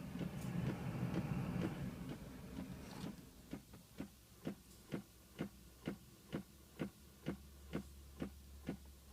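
Steady clicking from a 2006 Pontiac Solstice, about two clicks a second, a fault that started just after the battery was changed. A low hum runs under the first three seconds and then stops.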